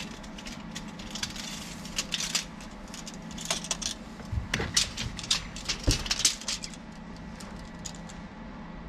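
Pencil or pen scratching on a makeshift notepad in short bursts of quick strokes, as a plan with dimensions is drawn and written, with a couple of light knocks and a faint steady hum underneath.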